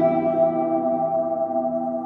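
Ambient instrumental music: several sustained, ringing notes held over a low drone, slowly fading.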